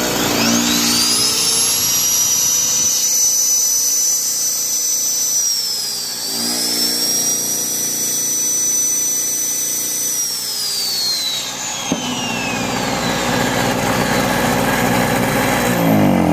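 Corded Harbor Freight electric drill, 7.5 amps, powered by a small gasoline inverter-style tailgater generator. The drill spins up with a high whine, holds speed, dips and picks up again about six seconds in, then winds down near the end. Under it the generator's engine keeps running and changes note as the drill's load comes on, showing the generator carrying a load on its new carburetor.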